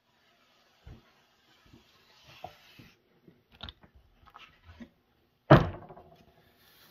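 Handling sounds at a workbench as a felt strip is pulled from a particleboard cutting jig: soft rustling and small taps, then one loud wooden knock about five and a half seconds in as the jig's top board is moved.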